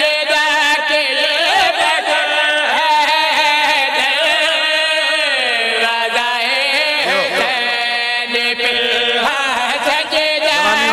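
A man's voice singing a qasida through a microphone in long, melismatic phrases, with held notes that glide up and down.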